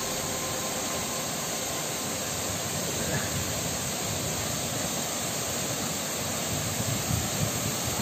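Steady rushing noise of twin waterfalls, two streams about 20 m high pouring into a rocky pool.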